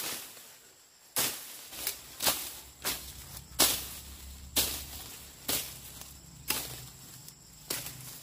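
A series of about nine sharp knocks or strikes, irregularly spaced roughly once a second, with a faint low drone behind them.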